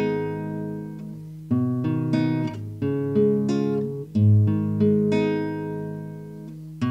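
Nylon-string classical guitar played fingerstyle, recorded through an AKAI ADM-25 dynamic microphone. A chord is struck about every one and a half seconds and left to ring, with single notes picked in between.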